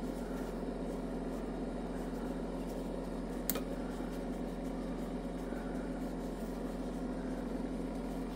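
Nostalgia retro cotton candy machine running: a steady motor hum from the spinning sugar head, with one short click about three and a half seconds in.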